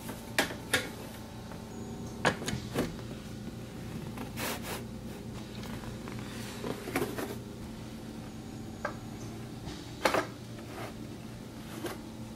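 Wooden knocks and short sliding scrapes as a flat shelf panel is slid into the grooves of slatted pine side rails, about nine knocks in all, the loudest about ten seconds in. A steady low hum runs underneath.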